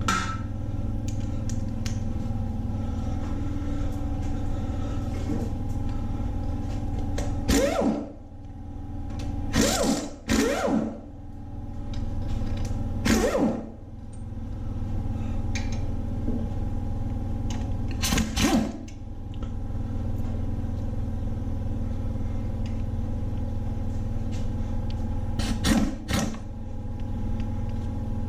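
Short, loud bursts from a power tool spinning a 10 mm socket to run engine bolts out, some in quick pairs, over a steady hum.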